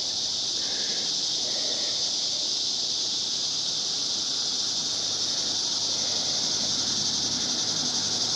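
Steady, continuous high-pitched insect buzzing from a chorus of singing insects, holding evenly without a break.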